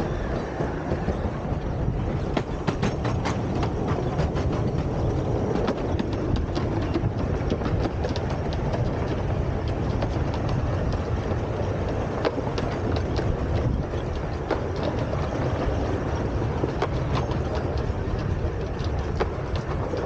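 A 12¼-inch gauge miniature steam train running along, heard from on board: a steady rumble of wheels on track, with frequent sharp clicks over the rail joints.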